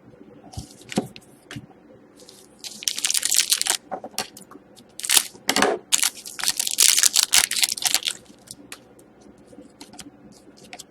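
Trading card pack wrapper and cards being handled: rustling and crinkling in close bursts for about five seconds in the middle, with scattered light clicks around them.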